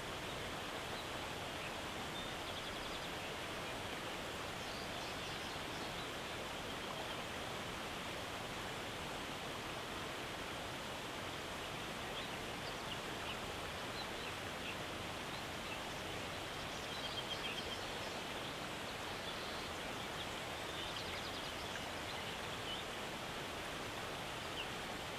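Steady outdoor nature ambience: an even rushing hiss with faint, high bird chirps now and then.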